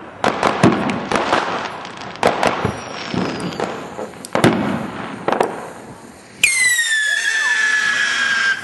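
Fireworks and firecrackers going off in a rapid run of sharp bangs and crackles. About six seconds in, a whistling firework starts: a loud, high whistle that dips quickly and then slides slowly lower for about two seconds.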